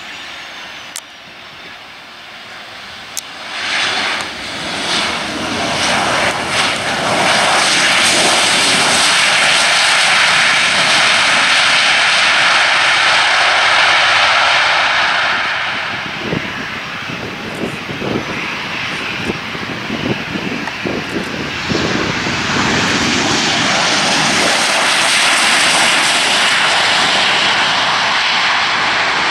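Boeing 737-800 jet engines roaring on the runway. The roar builds a few seconds in, eases and wavers around the middle, then rises again and holds.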